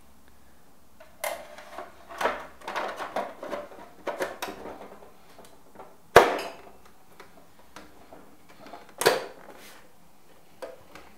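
Outer case of a Baratza Virtuoso burr coffee grinder being fitted down over its frame by hand: a run of short scrapes and rattles, then a sharp knock about six seconds in as it seats, and another knock near the end of the handling.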